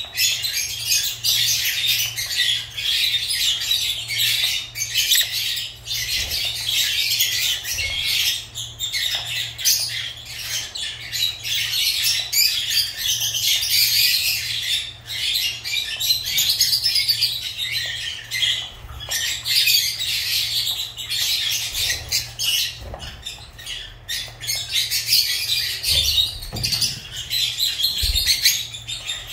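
Lovebirds chattering without pause, a dense stream of rapid, shrill chirps and squawks.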